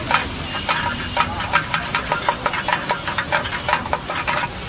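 Metal spatula scraping and clacking against a wok-style pan as an egg mixture is stirred and chopped over a gas flame, in quick strokes about four or five a second over the sizzle of the frying eggs.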